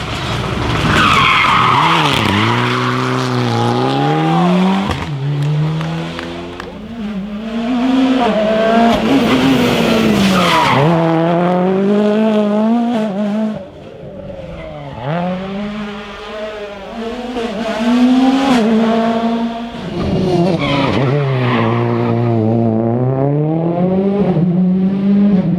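Rally car engines at full stage pace: revving hard up through the gears with quick, sharp shifts, then dropping down on braking, over and over. Tyres squeal through corners near the start and again towards the end.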